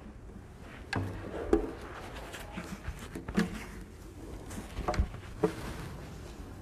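Knocks, bumps and rubbing as an acoustic guitar is handled: picked up from its stand and its strap slung on, with the strings ringing briefly when bumped, about five times in all.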